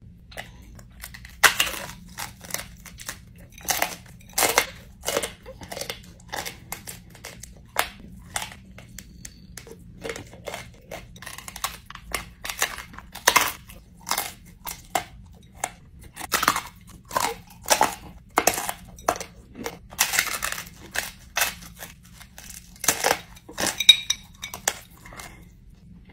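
Frozen fruit roll-ups topped with chamoy and tahini being bitten and chewed: a long, irregular run of sharp crunches, a few each second, starting about a second and a half in.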